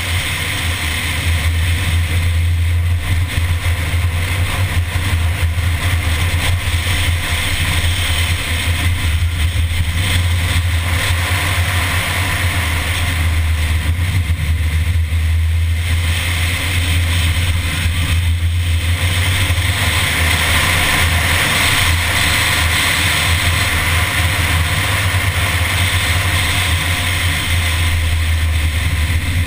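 A Mini being driven at speed through a run of curves, its engine and road noise picked up by a bonnet-mounted camera, under a heavy, steady low rumble. The higher part of the sound eases briefly about halfway through, then builds again.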